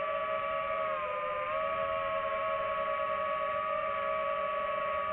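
DJI FPV drone's motors and propellers whining steadily as it flies, the pitch dipping briefly about a second in as the throttle eases, then settling again.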